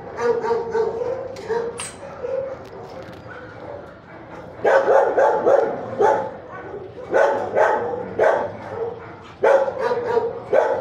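Dogs barking repeatedly in short clusters of barks, loudest from about halfway in.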